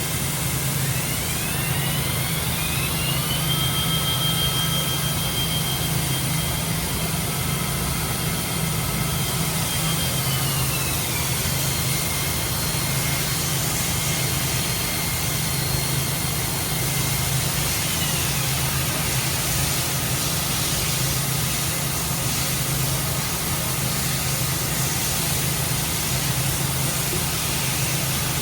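Spindle of a Parpas Diamond gantry machining center running through its warm-up cycle: a high whine that rises in pitch about a second in, holds, then steps down around ten seconds in and again later. Under it is a steady hum and hiss.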